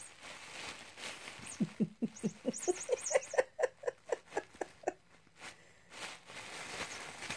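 Bubble wrap crinkling and rustling under a cat's paws. From about a second and a half in to about five seconds, a person giggles in a quick run of short laughs that rise in pitch.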